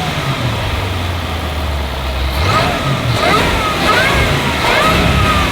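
Land Rover Defender 110's supercharged 5.0-litre V8 running at steady low revs, then picking up and rising in revs about halfway through, with short higher whines gliding up and down.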